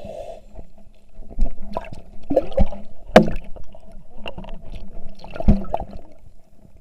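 Water sloshing and gurgling, with a few irregular knocks over a steady hum.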